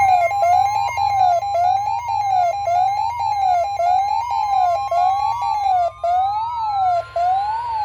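A weather radio's steady warning alert tone sounding together with an electronic siren wailing up and down about once a second. A further tone climbs slowly in pitch from about halfway through, and the steady alert tone cuts off near the end.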